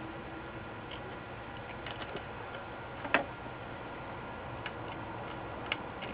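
Small clicks and taps from handling a circuit board while desoldering a capacitor, with one sharper click about three seconds in, over a steady background hiss.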